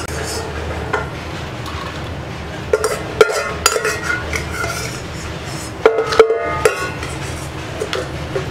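Steel spoon scraping and knocking inside a stainless steel pot, with several short ringing metallic clinks, as fried cashews are scooped out into a steel plate. A steady low rumble runs underneath.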